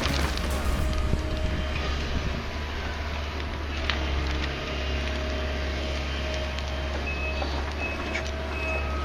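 Heavy machinery engine running with a steady low rumble, and a reversing alarm beeping several short times in the later part.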